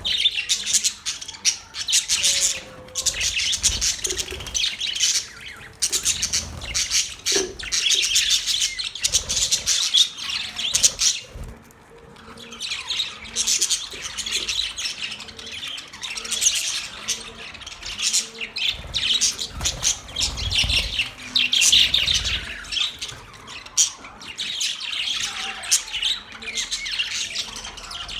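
Pet budgerigars (Australian parrots) chirping and squawking in a fast, constant chatter, with a brief lull near the middle.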